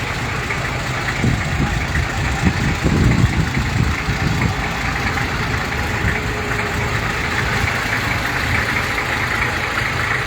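A vehicle engine idling steadily, with a heavier low rumble for a few seconds about a second in.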